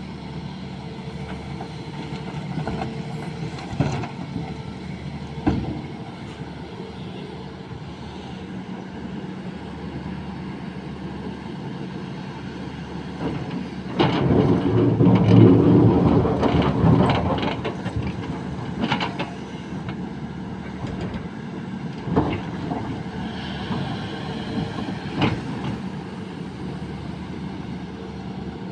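Sany excavator running under load while it works, its engine a steady hum broken by several sharp clunks. About halfway through it grows much louder and rougher for about four seconds.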